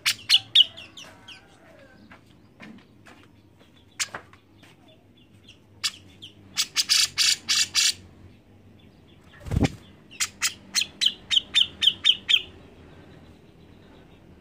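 Grey-cheeked bulbul (cucak jenggot) calling in bursts of short, sharp notes repeated quickly, about five or six a second. A single thump comes partway through.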